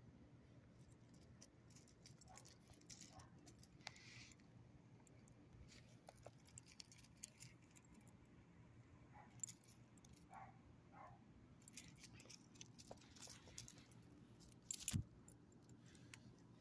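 Faint, scattered clicking and jingling of a leashed dog's collar and leash hardware as the dog moves about sniffing, with a louder clatter about fifteen seconds in.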